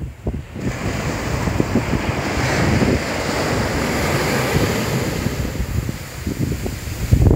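Ocean surf: a wave breaks and its foam washes up the sand with a rising hiss, over wind buffeting the microphone with a low rumble, gusting hardest near the end.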